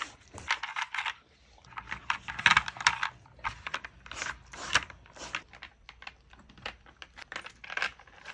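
Plastic dog puzzle toy clicking and clattering as a dog noses and paws at its sliding and flip-up pieces: a string of irregular light clicks.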